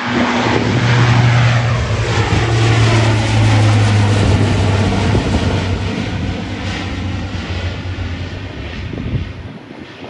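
Lockheed C-130J Super Hercules passing low overhead, its four turboprop engines and propellers giving a loud, steady low drone. The pitch falls as it goes by, and the sound fades away near the end.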